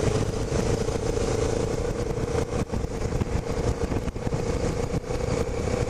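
Motorcycle engine running at a steady speed, a constant hum over a low rumble.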